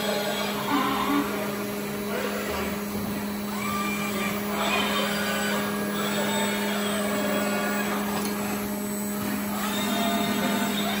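Industrial robot palletizing cell running: a steady low machine drone, with a higher whir that rises and fades as the robot arm and its suction-cup gripper move.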